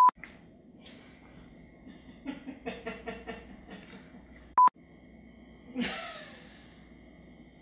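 Short electronic bleep tones at one steady pitch, inserted between takes in the edit: a loud one at the start and another about four and a half seconds in. Faint, rhythmic voice sounds and a breath come in between.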